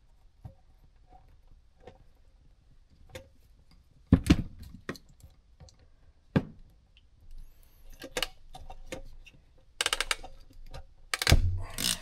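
Hand wire crimper clicking and snapping as ring terminals are crimped onto wires: sharp clicks about four seconds in and again near six and a half seconds, a quick run of clicks near ten seconds and a loud snap just past eleven seconds.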